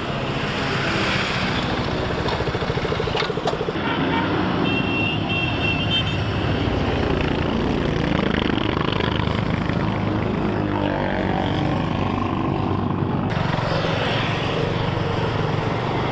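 Sport motorcycles' engines running amid road traffic, as bikes ride up and pull away, a steady engine sound throughout. A quick series of high beeps comes about five seconds in.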